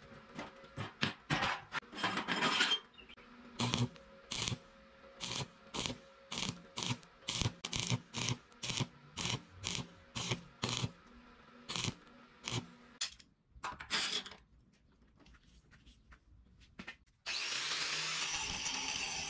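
Stick welder arc crackling in many short bursts, roughly one or two a second, with one longer burst near the start, as the electrode is struck again and again on a small steel bracket. About 17 seconds in, an angle grinder starts abruptly and runs steadily.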